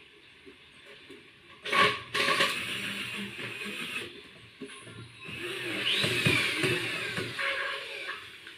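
A 12-volt popcorn machine with its metal pan: a sharp clank about two seconds in, then the machine's motor running in two spells, the second with a whine that rises and falls.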